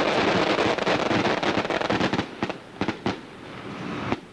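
Fireworks at a festival: a string of firecrackers crackling rapidly, thinning out about two seconds in to a few separate sharp bangs, with one last bang near the end.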